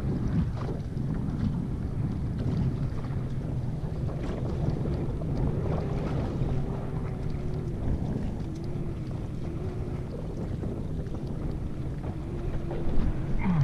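Wind buffeting the microphone over the steady wash of choppy water around a drifting small fishing boat, with a faint wavering hum through the second half.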